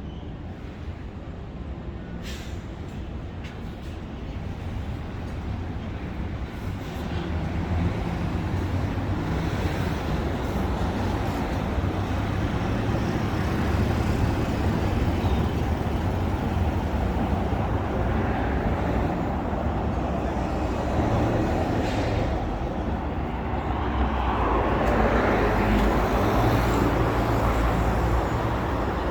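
Road traffic: vehicles driving past on a city street, a steady noise that grows louder about a quarter of the way in and swells again near the end as a vehicle passes close.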